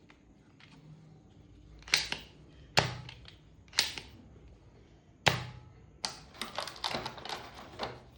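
Shots from a transparent Nerf-style toy blaster fired at a glass pepper shaker: four sharp single cracks spaced a second or so apart, then a quick rattling run of clicks and taps.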